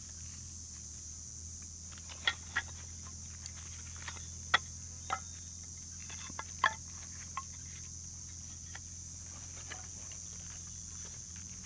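A steady high-pitched insect drone, with a scatter of about eight short sharp clicks and snaps between about two and seven and a half seconds in.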